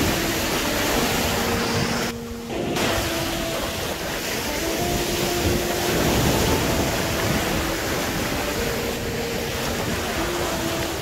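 Ocean surf breaking and foam washing up over the sand, a steady rushing wash with a brief dip about two seconds in. Faint background music of long held notes runs underneath.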